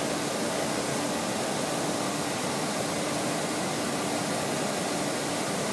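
Steady rushing noise of gas-fired glass furnaces and their burner blowers, with a faint low hum running through it.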